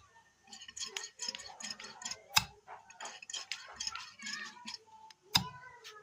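Irregular light clicks and ticks, with two sharp knocks about two and a half and five and a half seconds in.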